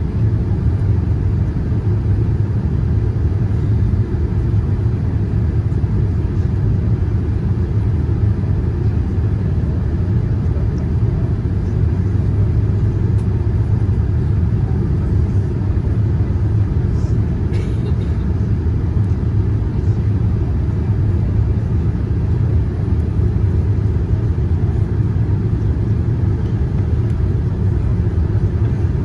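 Steady low rumble of a Boeing 787-9 airliner with GEnx engines in motion, even in level throughout.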